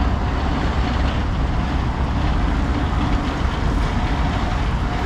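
Steady traffic noise of a city street, with a strong low rumble.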